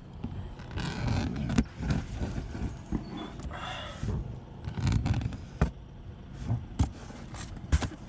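Cardboard boxes being handled and opened, with scraping and rustling and a string of sharp, irregular knocks and taps.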